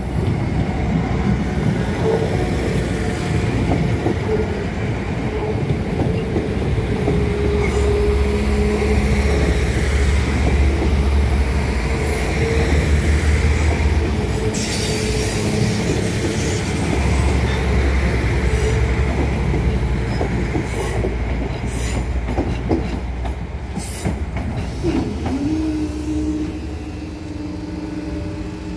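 A Translink NI Railways diesel multiple unit passes close by with a deep engine and wheel rumble and clicks of wheels over rail joints, fading as the last coach goes by. About 25 s in, a steady motor hum starts as the level crossing barriers rise.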